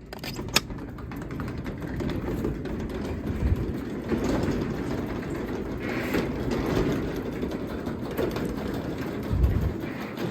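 Craftsman 3/4 hp belt-drive garage door opener starting with a sharp click and running steadily, the door rumbling and rattling as it rolls open on its tracks. A low thump comes near the end.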